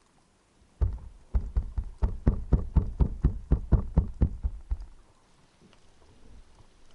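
A fast series of about fifteen sharp knocks underwater, roughly four a second, from a hard object striking stone or rock.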